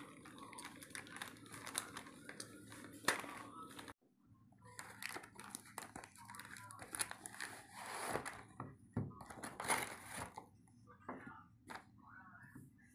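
Plastic packaging crinkling and rustling as it is handled: a plastic mailer bag, then a clear plastic air-cushion wrap around a phone box, in many sharp crackles. A sudden break about four seconds in.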